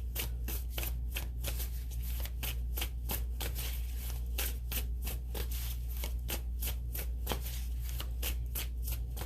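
A deck of tarot cards being shuffled by hand, a steady run of quick papery snaps about three or four a second, over a steady low hum.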